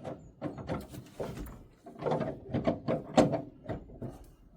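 Irregular knocks, clicks and scrapes of hands handling parts on an old tractor, the sharpest knock a little over three seconds in.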